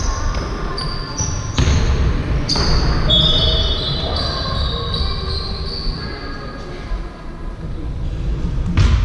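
Basketball game on a hardwood-style gym court: sneakers squeaking in short chirps on the floor, the ball thudding a few times, and players calling out now and then.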